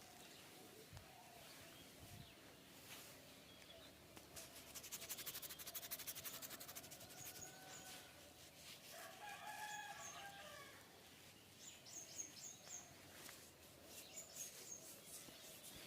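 A rooster crows once, faintly, about nine seconds in, one drawn-out call, with small birds chirping briefly now and then.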